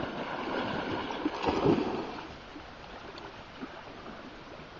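Water sloshing and splashing as dogs wade and swim, busiest in the first two seconds, then quieter.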